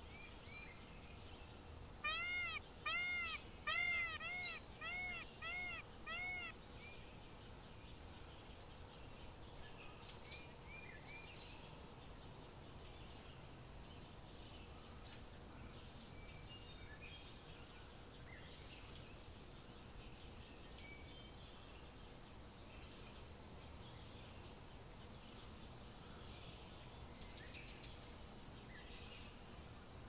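Indian peafowl calling: a run of about eight loud calls about half a second apart, each rising and then falling in pitch, starting about two seconds in and lasting some four seconds. After that only faint, scattered bird chirps are heard over a steady outdoor background.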